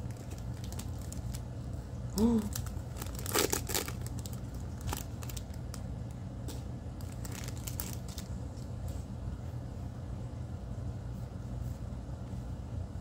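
Foil Pokémon booster-pack wrapper crinkling and tearing as it is opened and the cards are slid out, in scattered bursts of crackle that are busiest a few seconds in, over a steady low hum.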